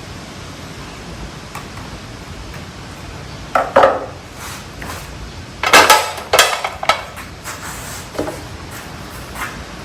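Metal parts and hand tools clinking and clattering as a wheelchair's front caster assembly is taken apart, in short bursts: two knocks a few seconds in, a louder cluster around the middle, and a couple of lighter clinks near the end.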